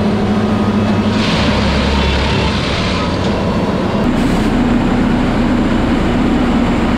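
Heavy railway track-maintenance machine (ballast tamping and track stabilising) running: a loud, steady engine hum with a burst of hiss a little after a second in. The hum shifts slightly higher in pitch about four seconds in.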